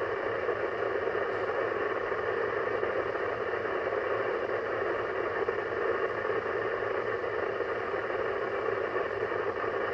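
Yaesu FT-710 HF transceiver's speaker putting out steady static and hiss on the 10-metre band, with faint steady tones running through it: interference the owner puts down to his solar inverter.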